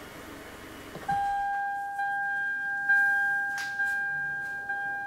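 Toyota Rush's dashboard warning chime: a single-pitched ding repeating about once a second, each ding fading away. Before it, a steady low hum, most likely the running engine, cuts out with a soft click about a second in.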